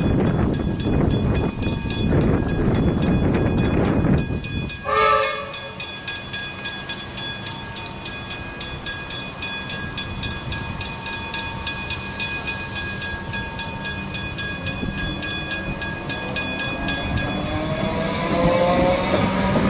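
Level crossing warning bells ringing with rapid, even strikes. A loud rushing noise fills the first four seconds, and a short train horn blast sounds about five seconds in. In the last few seconds an electric suburban train arrives at the crossing, its motors whining in rising tones.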